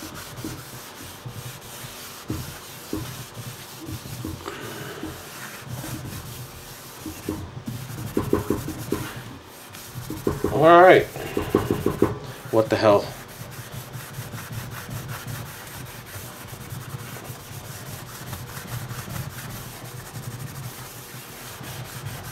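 Scotch-Brite scouring pad scrubbing back and forth over a wet, foam-covered oven pan, a steady rasping rub as baked-on grease is worked off. About halfway through there are two brief, louder squeaks.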